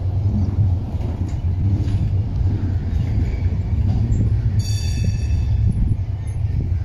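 An articulated tram passing close by, its wheels and motors giving a steady low rumble and hum on the rails. About two-thirds of the way through there is a brief high-pitched ring.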